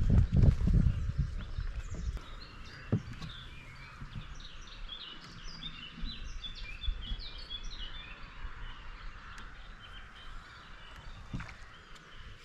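Small birds singing: a dense run of short, high chirps and trills that fades out near the end. A low rumbling noise covers the first two seconds.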